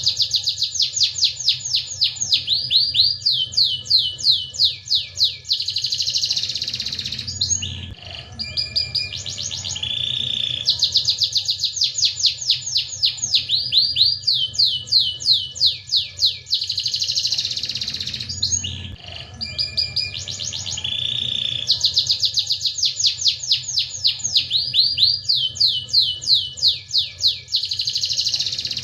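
Domestic canary singing: long phrases of fast trills of rising sweeps and rolling buzzy notes, high-pitched, the same song coming round about every eleven seconds over a faint low hum.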